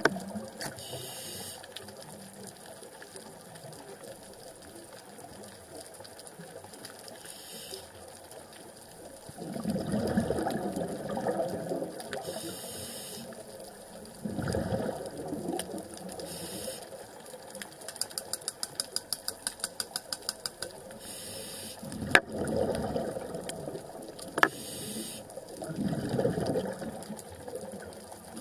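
Scuba diver breathing through a regulator, heard underwater: exhaled bubbles rush out in bursts every few seconds, with short hissing inhalations between them. Midway there is a fast run of even clicks, and later two sharp clicks.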